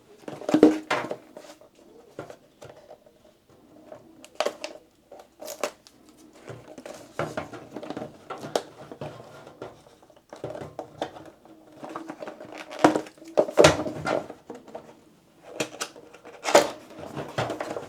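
A PC fan being unboxed: its cardboard box and plastic packaging are handled and opened, with scattered clicks, taps and crinkling rustles.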